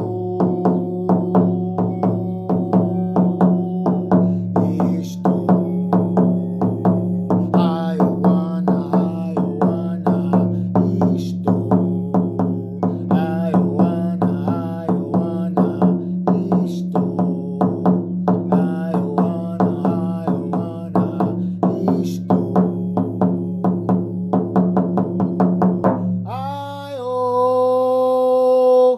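Hand drum beaten in a steady ceremonial rhythm, about two to three strokes a second, over a low steady drone. Near the end the drumming stops and a long held note begins, leading into a chant.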